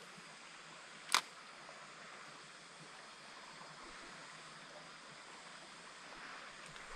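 Faint steady hiss of a flowing stream, with one sharp click about a second in.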